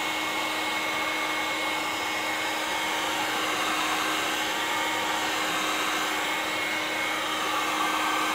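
Electric Gamma heat gun running steadily: a continuous rush of blown air over a low, even motor hum with a faint high whistle.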